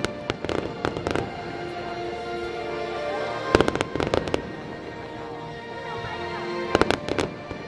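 Aerial fireworks bursting in three quick volleys of sharp bangs, the first about half a second in, the second near the middle and the last near the end. Background music plays steadily underneath.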